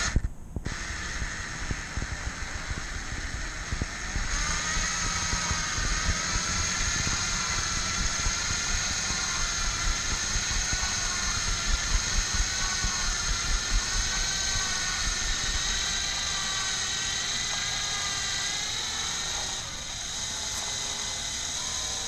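Electric drill running under load, turning a screw extractor to back a broken bolt out of a Kawasaki Vulcan 900 engine case; the motor whine wavers in pitch as the load shifts and settles a little near the end.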